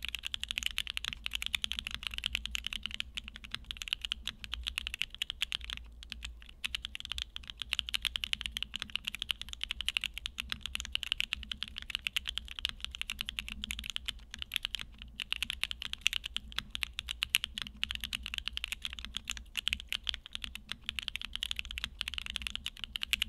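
Steady fast typing on a Newone Twilight TKL gasket-mount custom mechanical keyboard fitted with TTC Holy Panda tactile switches: a dense run of keystroke clacks, with brief lulls about six and fifteen seconds in.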